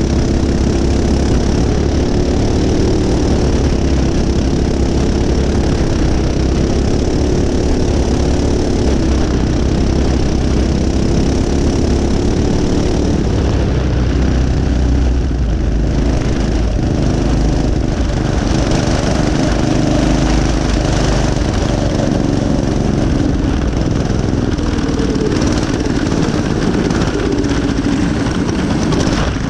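Racing go-kart's Predator single-cylinder four-stroke engine running hard, heard up close from on board the kart, its pitch wavering a little up and down as it goes.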